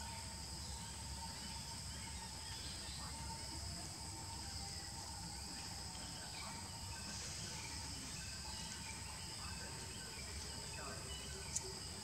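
Outdoor tree-canopy ambience: insects droning in steady high tones over a low rumble, with faint scattered chirps. A single sharp tick sounds near the end.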